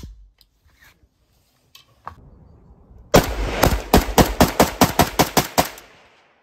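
Kalashnikov rifle firing: a single shot at the start, then, about three seconds in, a rapid string of about a dozen shots in under three seconds.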